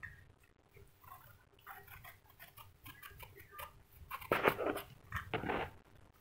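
Knife blade scraping the ridged skin off a bitter gourd: a run of short crackly scrapes, with two louder, longer strokes about four and five seconds in.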